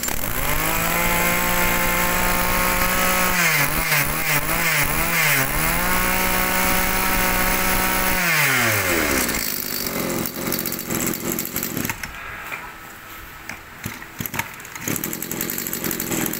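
Mitsubishi TB26 backpack brush cutter's small two-stroke engine revving up within the first second and held at high speed. The throttle is blipped a few times around four seconds in, then held high again. About eight seconds in the throttle is let off and the revs fall away, leaving the engine much quieter.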